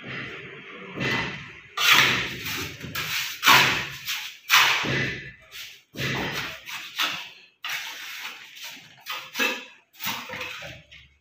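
A mason's trowel scraping and slapping wet cement mortar and knocking against brick pieces in about a dozen irregular strokes, as mortar is packed around the legs of a concealed cistern frame.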